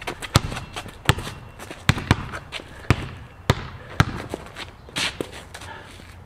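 Basketball dribbled on a concrete court: about six sharp bounces at an uneven pace, roughly one every half second to second, ending about four seconds in.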